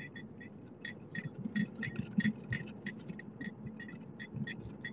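Car turn-signal indicator ticking steadily, about three clicks a second, over the faint low rumble of the car moving.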